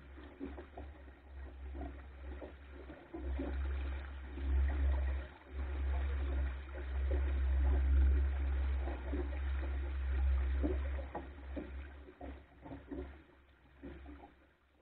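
Water rushing and gurgling along the wooden hull of a small sailing skiff under way, over a steady low wind rumble on the microphone that swells in the middle.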